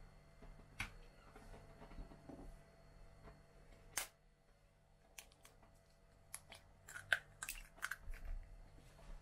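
Faint taps and small cracking clicks of a hen's egg being cracked on the rim of a glass bowl and its shell broken apart: one sharper tap about four seconds in, then a quick run of clicks near the end.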